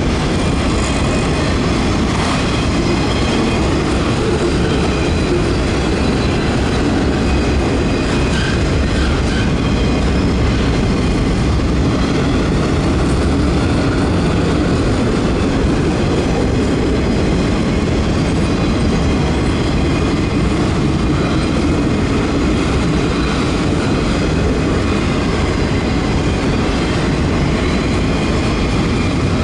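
Freight train of autorack cars rolling steadily past at close range: a continuous, even noise of steel wheels running on the rails.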